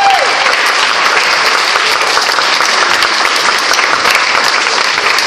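Audience applauding steadily at the end of a dance, with the last note of the music dying away just at the start.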